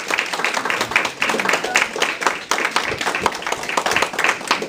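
Audience applauding: a dense, irregular patter of many hands clapping.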